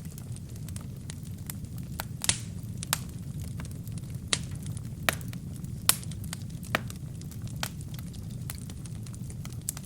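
Wood fire burning in a fireplace: irregular sharp crackles and pops from the burning wood and kindling over a steady low rumble of the flames. The louder pops come about two seconds in and near six seconds.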